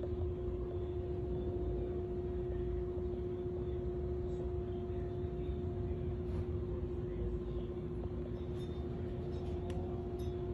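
Steady machine hum with one constant low tone and a low rumble underneath, with a few faint ticks in the last few seconds.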